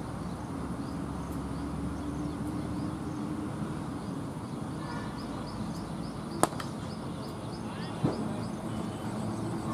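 Cricket bat striking a leather ball: one sharp crack, then a duller knock about a second and a half later. Faint high chirps repeat throughout over steady open-air background noise.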